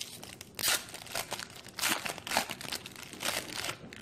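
Foil wrapper of a 2016 Panini Prestige football card pack being torn open and crinkled by hand, in a series of short, loud bursts that stop just before the end.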